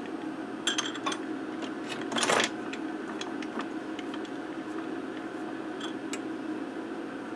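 Harbor Freight mini mill's table being worked by hand at its handwheel: scattered light metallic clicks and clinks, with one louder short scraping rush about two seconds in, over a steady low hum.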